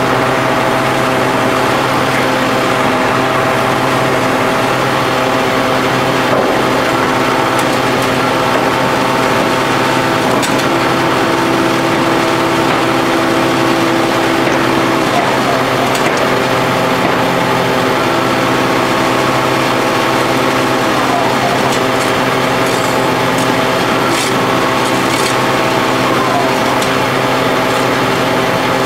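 Hydraulic power unit of a pile extractor running steadily, a constant machine drone made of several steady tones, one of them stronger for a few seconds in the middle. A few faint scrapes near the end.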